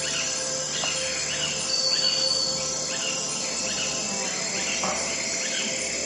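Birds chirping in many short repeated calls and crickets trilling steadily, over a soft, held synthesized tone.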